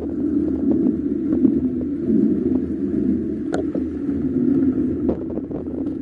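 Steady rumble of a bicycle rolling over town pavement, heard close through a bike-mounted camera, with light rattling clicks and one sharper click about three and a half seconds in.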